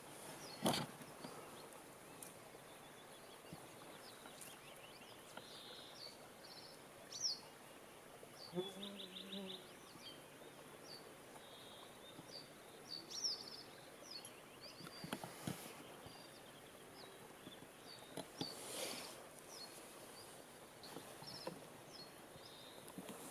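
Faint outdoor ambience of small birds calling, with short high chirps scattered throughout. There is a click about a second in and a few soft rushing sounds in the second half.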